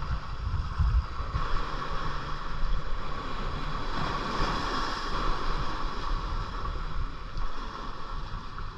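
Wind buffeting the microphone over water lapping gently at a kayak, a steady rush with irregular low rumbles.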